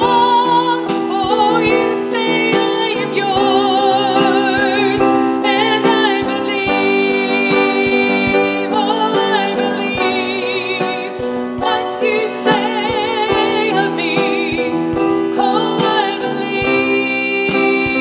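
A woman singing a solo with wavering vibrato while accompanying herself on a grand piano.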